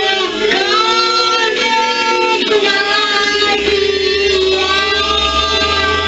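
A song with guitar accompaniment and a sung melody of held notes, with a small girl singing into a toy microphone.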